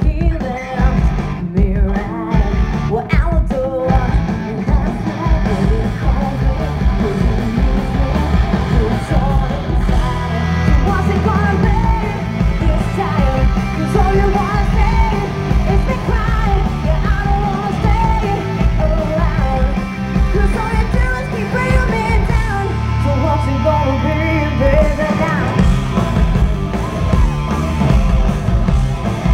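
Live rock band playing loud over a concert PA, with electric guitars, drums and a sung lead vocal. It is heard from among the audience in a large hall.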